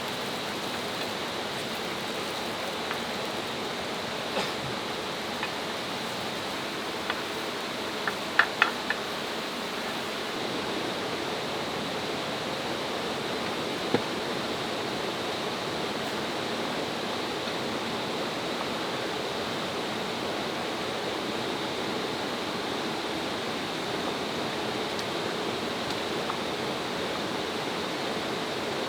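Mountain valley stream rushing steadily over rocks, an even water noise. A few sharp clicks about eight seconds in and once more near fourteen seconds.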